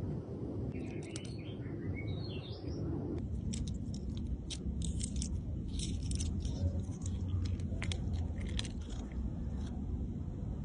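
Slime being squeezed and stretched by hand, giving a run of sharp clicking pops as air pockets burst, over a low steady rumble. A few high squeaky chirps come before the popping starts.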